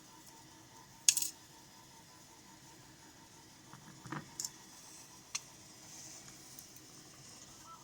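Small metal lock parts clicking and tapping as a pin-tumbler lock cylinder is taken apart: a sharp click about a second in, a duller knock around four seconds, and another short click about five seconds in.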